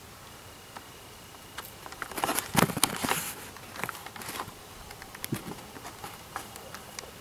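Dry grass rustling and brushing close to the microphone as the camera is swung about: a burst of rustling and clicks in the middle, then scattered light clicks.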